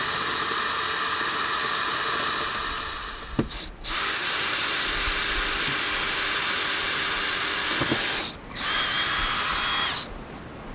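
Cordless drill boring into a concrete block wall with a masonry bit. It runs in three stretches, with short stops about 3.5 and 8 seconds in, and stops shortly before the end.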